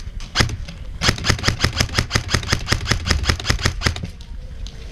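Airsoft electric rifle, a G&G Combat Machine, firing: one shot, then a burst of about three seconds of rapid, even clicks at roughly ten shots a second over the gearbox motor's hum.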